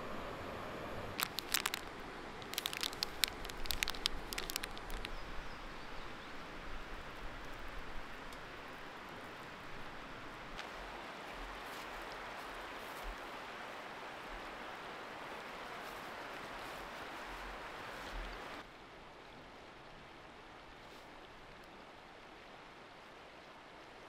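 Footsteps crunching and rustling through dry leaf litter for the first few seconds, over the steady rush of a river. Near the end the background drops suddenly to a quieter hush.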